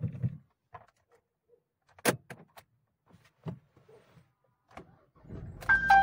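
Sharp clicks inside a Hyundai Tucson's cabin: one loud click about two seconds in and a few lighter ones after it, like a switch being worked. From about five seconds a low rumble starts, and an electronic chime of a few steady tones sounds near the end.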